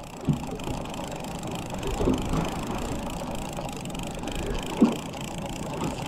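Steady wind and water noise on a small open fishing boat, with a few brief sharper sounds; the loudest comes about three-quarters of the way through.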